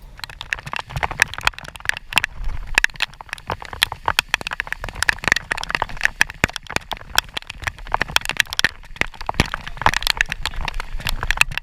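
Raindrops pattering close on the microphone, a dense run of sharp irregular ticks, over a low wind rumble.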